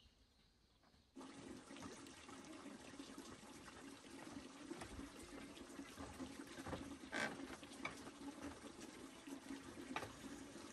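Water running steadily, starting suddenly about a second in, with a few light knocks and clatters of things being handled.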